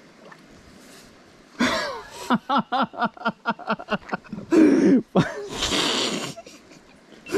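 A person laughing: a quick run of short voiced bursts, about six a second, followed by a falling voiced sound and a breathy exhale.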